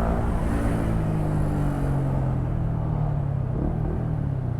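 Motorcycle engine running at a steady cruise, its note sinking slightly as it eases off.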